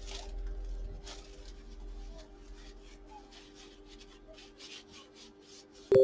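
Tissue wiped over a laptop motherboard in a quick series of short rubbing strokes. Right at the end, a loud electronic beep cuts in.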